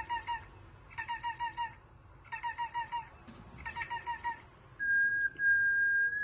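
Repeated bursts of rapid bird-like chirps, four or five short notes per burst, about every second and a half. About five seconds in, a steady high whistle takes over as the loudest sound and starts to slide down in pitch near the end.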